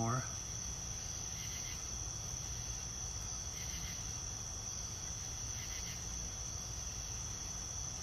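Steady, unbroken high-pitched trilling of a chorus of night insects. The freshly emerged cicadas on the door are silent; this is the insects singing in the surrounding yard.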